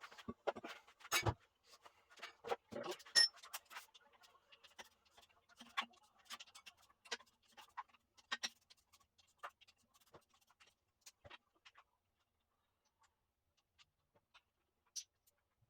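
Scattered light clicks and knocks of metal tools and parts being handled, busiest in the first half and thinning out to a few faint ticks near the end.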